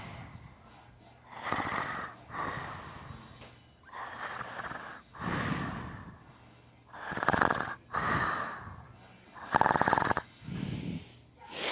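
A man snoring heavily in sleep, snoring on both the breath in and the breath out, about four breaths at a slow, even pace.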